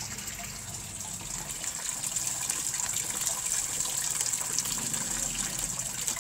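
Water gushing steadily into a washing machine tub as it fills for a wash, getting a little louder about two seconds in.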